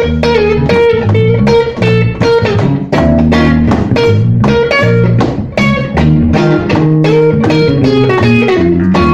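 Blues band playing an instrumental passage: electric guitar over bass guitar, with a steady beat.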